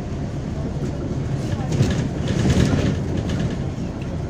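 Inside a moving MAZ-203 low-floor city bus: steady diesel engine and road rumble, with a knock at about two seconds and a louder burst of rattling just after.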